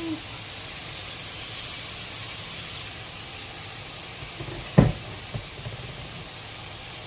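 Ground beef, shrimp and onions sizzling steadily in a hot metal wok just uncovered. There is one sharp knock about five seconds in, then a couple of lighter taps.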